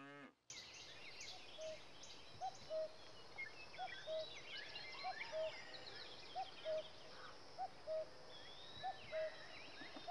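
Faint birdsong: small birds chirping, and a low two-note call repeating steadily about every second and a quarter.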